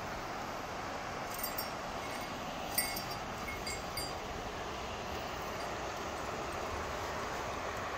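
A few light, high metallic tinkles in the first half, over a steady rushing background noise.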